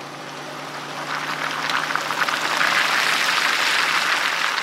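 Steady rushing noise with a low hum underneath, swelling to its loudest around the middle and then easing off.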